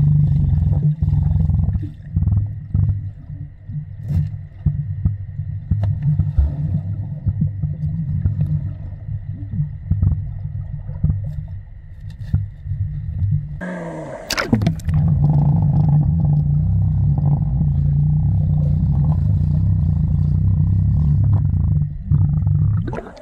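Water heard through an underwater camera as a swimmer moves through it: a muffled low rumble with scattered clicks and bubble pops. A brief rush of splashing noise comes about fourteen seconds in, then the muffled underwater rumble returns.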